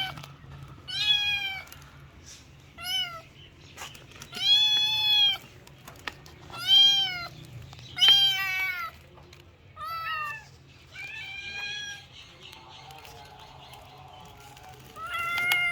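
Kitten meowing repeatedly: about eight high-pitched meows, each one drawn out and arching up then down in pitch, one to three seconds apart.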